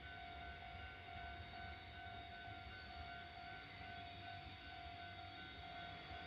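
Railway level-crossing warning bell ringing steadily at about two strokes a second, over a faint low rumble from the approaching ED45 electric locomotive.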